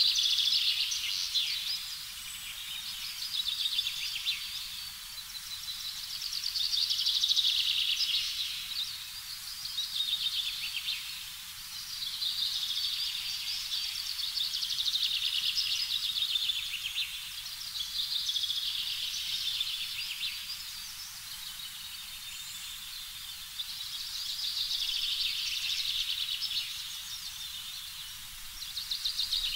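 A chorus of high-pitched chirping calls that swells and fades in waves every few seconds.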